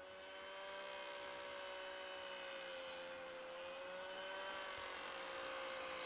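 A faint, steady engine drone whose pitch wavers slightly, slowly growing louder.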